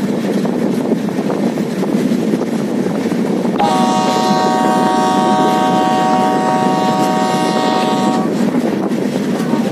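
A locomotive horn sounds one long blast of several notes at once, starting about three and a half seconds in and cutting off about four and a half seconds later. Under it runs the steady rumble of the passenger coaches rolling along the track.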